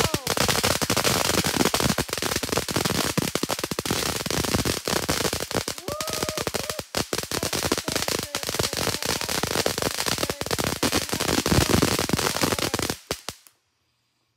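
Ground firework going off in a dense, unbroken run of rapid crackling pops for about thirteen seconds, then stopping suddenly.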